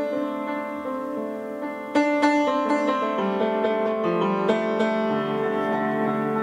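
Upright piano played with its front panel off, the hammers and strings bare: struck chords and single notes ringing on. A loud chord comes about two seconds in, followed by further notes.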